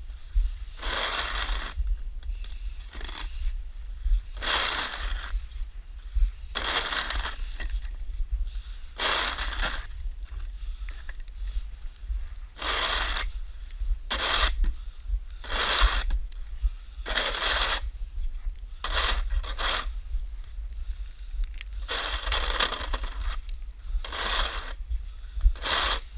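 Snow shovel scraping and pushing through snow, stroke after stroke, about one every second or two.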